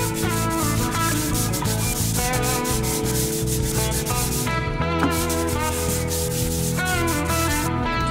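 A radius sanding block with sandpaper rubbed back and forth along the fretboard of a 1965 Gibson LG-1 acoustic guitar, truing it to a 12-inch radius, in repeated strokes with a short break about halfway through and again near the end. Guitar background music plays underneath.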